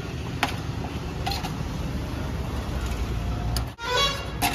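A few sharp clinks of a steel knife and spoon against the metal shawarma tray and counter, over a steady low rumble.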